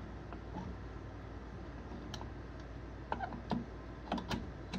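Light clicks and taps of small chainsaw parts being handled and fitted by hand, a few scattered clicks from about two seconds in, over a steady low hum.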